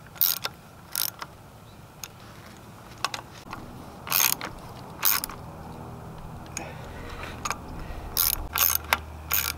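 Socket ratchet clicking in short bursts as the new bolts of an outboard's water pump housing are run in gently by hand, the bursts closer together near the end.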